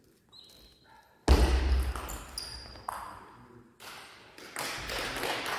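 Table tennis ball clicking on bats and table during a rally, then a sudden loud thump about a second in that fades over a couple of seconds, with more loud noise near the end.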